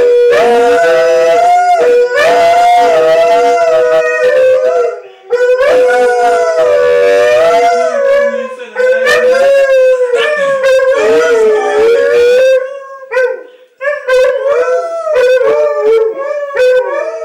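A West Siberian Laika and Alaskan Malamutes howling together: long overlapping howls, one holding a steady pitch while others waver up and down. From about two-thirds of the way in, the howls break into shorter, choppier calls.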